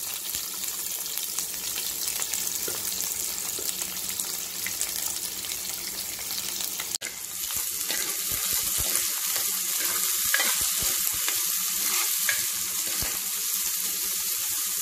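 Chopped onion and garlic sizzling in hot oil in a kadai. In the second half a steel spoon stirs them, scraping against the pan. There is a brief break in the sound about halfway through.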